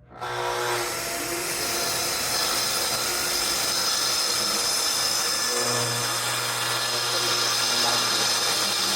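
Festool TS75 EQ track saw starting up abruptly and then running steadily with a high whine as its blade crosscuts a thick walnut slab.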